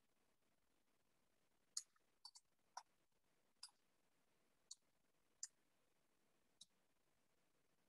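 Scattered light clicks of a computer mouse button, about eight over five seconds, one a quick double click, against near silence.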